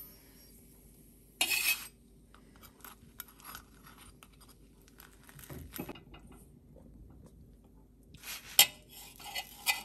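Knife and fork cutting a folded quesadilla on a flat pan: metal scraping and clicking against the pan. There is a brief loud scrape about a second and a half in, then light scattered clicks, and near the end a denser run of clinks and scrapes with one sharp click.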